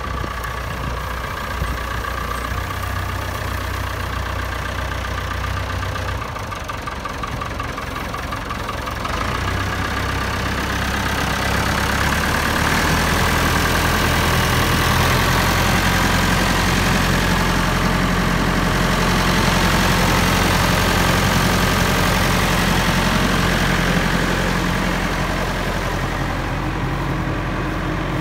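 Massey Ferguson 1085 tractor's four-cylinder diesel engine idling steadily, growing louder partway through and easing back near the end.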